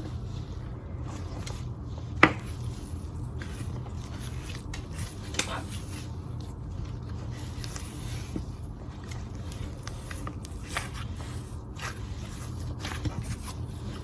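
Hands squishing and stretching a very soft slime: faint sticky crackles and small pops rather than crunchy noises, with one sharp click about two seconds in, over a steady low hum.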